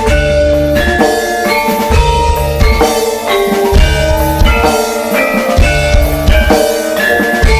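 Music with a drum kit beat, heavy bass pulses and a melody of short pitched notes.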